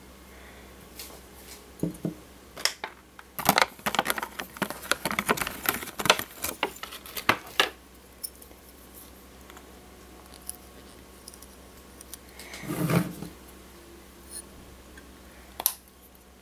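Clicks, taps and light rattling of a model airliner and its clear plastic display stand being handled and fitted together. There is a dense run of clicks lasting about four seconds a few seconds in, a shorter cluster later, and a few single clicks.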